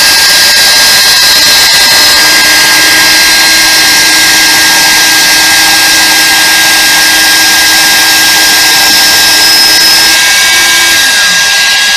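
Electric power tool running at full speed with a steady high whine. It is switched off near the end and winds down with a falling pitch.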